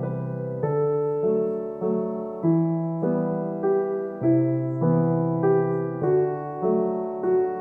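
Background piano music: slow, gentle notes and chords struck about every two-thirds of a second, each fading before the next.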